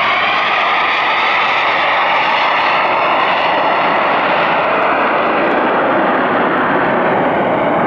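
Jet engine of a homebuilt Cozy jet aircraft in flight, heard from the ground as a loud, steady rushing noise.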